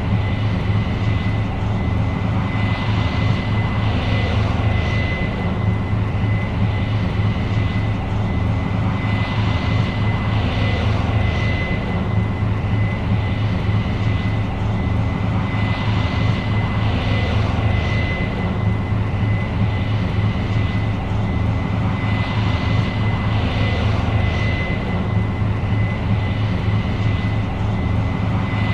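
New Holland CR 7.90 combine running steadily while harvesting corn: a heavy, even drone with a constant high-pitched whine over it and a hiss that swells and fades every few seconds.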